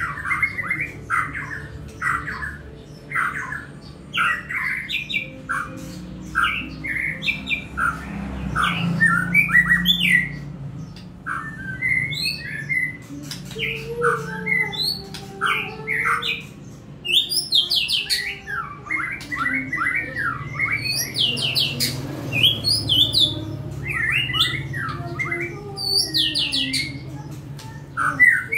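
White-rumped shama (murai batu) singing in its cage: a long, fast run of short whistled and harsh notes, broken by a few brief pauses.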